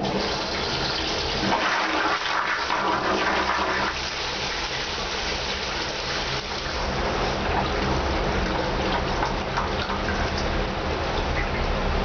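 Bellini squat toilet flushing: a steady rush of water pouring into the ceramic pan and draining away.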